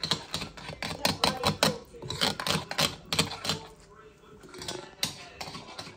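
Knife chopping quickly on a cutting board: a fast run of sharp taps, several a second, thinning out in the second half.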